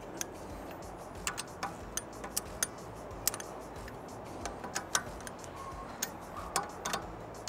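Socket ratchet wrench clicking in short, irregular bursts as lug nuts are snugged down a little at a time on a wheel spacer, over a low steady hum.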